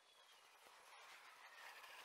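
Near silence: faint background hiss.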